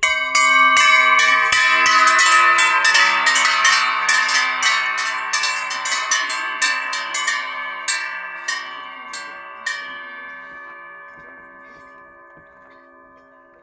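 A row of large Swiss cowbells hung side by side from a wooden frame, pushed by hand so they swing and clang: many quick, overlapping clapper strikes that thin out over about ten seconds, after which the bells keep ringing and slowly fade.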